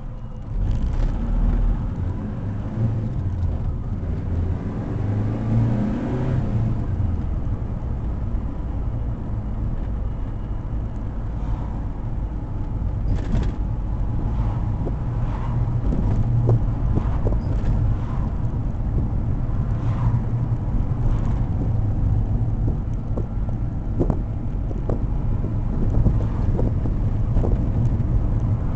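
Saab 96 V4 engine and road noise heard from inside the cabin: the car pulls away about half a second in, the engine note rising as it accelerates, then it runs on steadily at road speed with a few short knocks.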